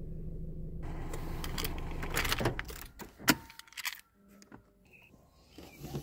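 A Subaru car's engine idles in Park and is switched off a little under halfway through. Then comes a sharp click and keys jangling as the key is turned and pulled from the ignition.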